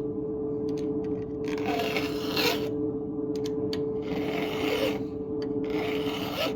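Hand file scraping across a chainsaw chain in three strokes of about a second each, with light ticks between the strokes.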